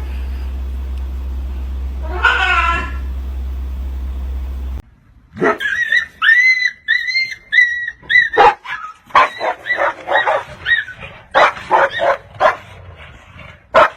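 A single meow over a low steady hum, then a small dog yipping and whimpering in a quick run of short, high-pitched calls, several a second.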